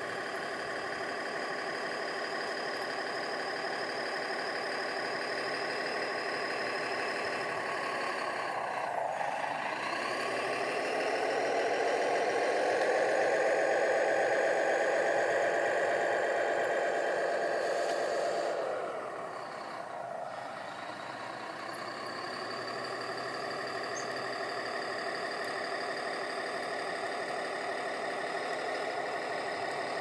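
Radio-controlled model bulldozer working a gravel pile, giving a steady engine-like drone. About a third of the way in it dips, then climbs in pitch and gets louder, holds there for several seconds, and drops back to the lower note about two-thirds of the way through.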